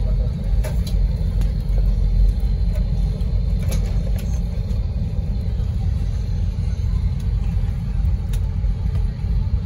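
Steady low rumble in the cabin of an Airbus airliner taxiing toward takeoff, the engines at low power and the wheels rolling on the taxiway, with a few faint clicks.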